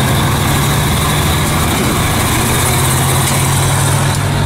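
Truck engine running steadily, a constant low hum with road and cabin noise, heard from inside the cab.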